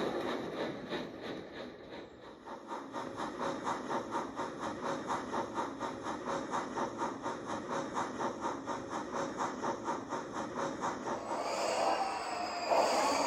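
Steam locomotive working: a hiss, then exhaust chuffing in an even rhythm of about four beats a second, quickening slightly as it goes. Near the end a whistle blows with a sliding, wavering pitch.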